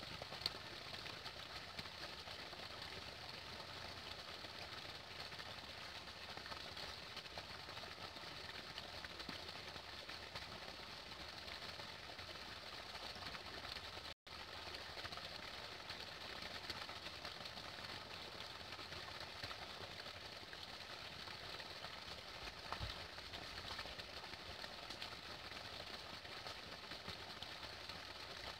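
Faint, steady outdoor ambient hiss with no distinct events, briefly cut to silence about halfway through.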